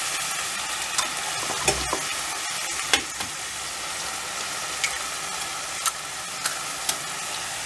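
Ground beef and tomato sizzling steadily in a frying pan over low gas heat, with about seven sharp taps and clicks scattered through it as eggs are cracked and handled over a glass plate.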